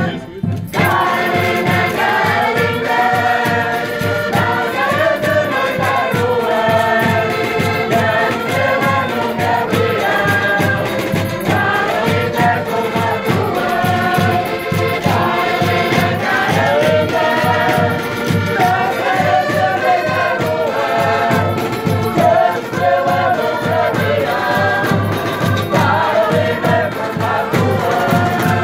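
Portuguese folk rusga group performing: a chorus of voices singing, with tambourine and drums keeping a steady beat. The music breaks off briefly about half a second in, then carries on.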